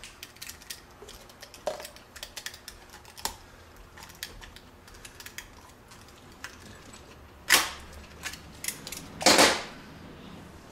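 A knife cutting through an old inner CV joint boot on a front-wheel-drive axle: scattered light clicks and scrapes, then two louder scrapes about seven and a half and nine seconds in.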